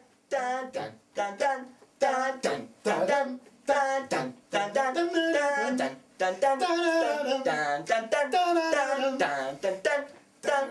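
A voice singing a melody in a small room: short sung syllables at first, then longer, held notes in the second half.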